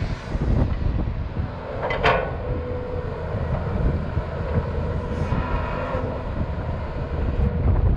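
Volvo EC210B crawler excavator's diesel engine and hydraulics working as the bucket swings back and digs into a soil pile, with heavy wind rumble on the microphone. A sharp clank about two seconds in, then a steady hydraulic whine under the digging load.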